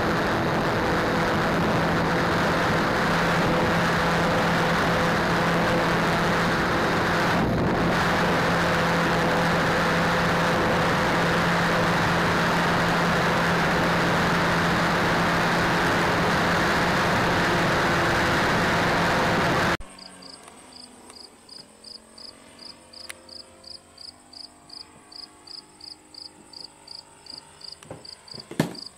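Steady motor hum under heavy wind rush, picked up by a camera riding on a radio-controlled model plane in flight. About twenty seconds in it cuts to crickets chirping about three times a second, with the faint drone of a model plane's engine rising and falling overhead and a sharp knock near the end.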